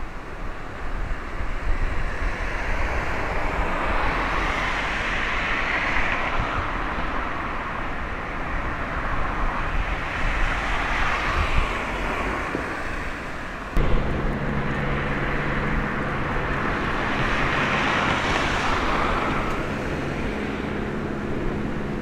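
Outdoor traffic noise: vehicles pass by in swells that rise and fade over a few seconds, three times. About two-thirds of the way through, a steady low engine hum starts suddenly and keeps going.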